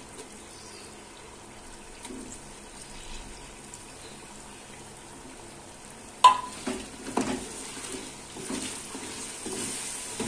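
Meat and oil sizzling in a pressure cooker as pureed tomatoes go in. About six seconds in, a spatula strikes the aluminium pot with a ringing clang, then knocks and scrapes around it while the mixture is stirred and sizzles louder.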